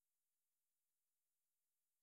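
Digital silence.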